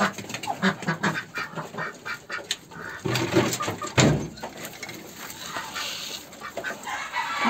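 Ducks quacking in short, irregular calls, mixed with other farmyard bird calls, and a sharp knock about four seconds in.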